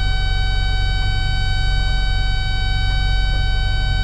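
Cat 316 excavator's diesel engine running steadily, with a continuous high-pitched tone held over it.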